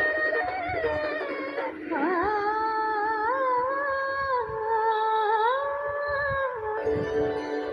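Background music: one long wordless melody of held notes that slide up and down between pitches, changing to a steadier held tone near the end.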